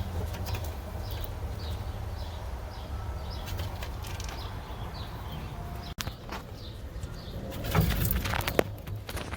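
A small bird chirps over and over with short falling chirps over a steady low rumble. Near the end comes close rustling and a run of sharp clicks and scratches.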